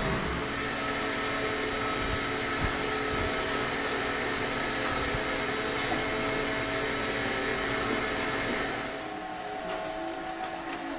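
A steady whirring of a small motor, which gets a little quieter about nine seconds in.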